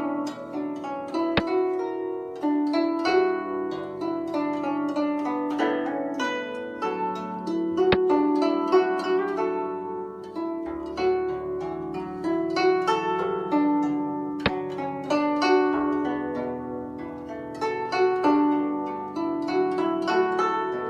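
Background music of a plucked string instrument: a stream of quick, ringing notes. Three sharp clicks fall about a second and a half in, near eight seconds and near fourteen and a half seconds.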